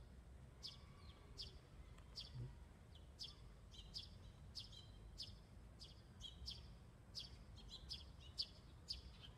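A small bird chirping repeatedly, short high chirps about two to three a second, over a faint low background rumble.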